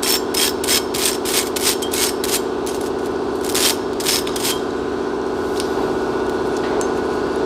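Hand brush scrubbing a brake part clean in quick rasping strokes, about three a second, that thin out after two or three seconds, over a steady low hum.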